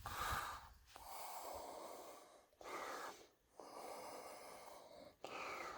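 Faint breaths close to the microphone, a short puff roughly every second, over quiet room tone.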